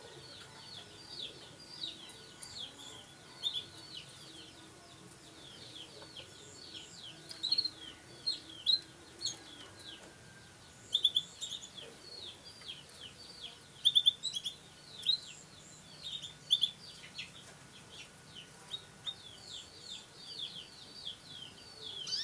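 Canaries chirping: a run of short, high, downward-sweeping chirps, several a second, louder in clusters.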